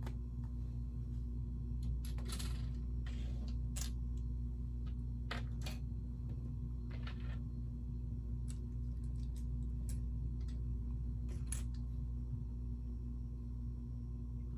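Plastic LEGO pieces being handled and pressed together: scattered sharp clicks and a few short rustles, over a steady low hum.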